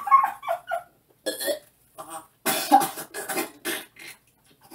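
A man retching and coughing into a paper bag after drinking a blended fast-food meal: a series of short gagging heaves, the loudest run about two and a half to four seconds in.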